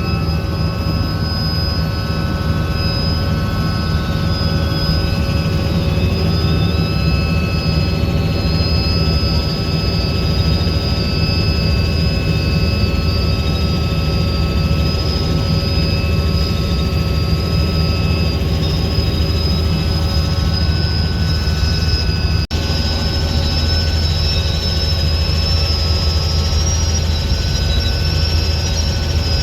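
Helicopter in flight, heard from on board: a steady, loud low rumble of rotor and engine with several steady whining tones above it, cutting out for an instant about two-thirds of the way through.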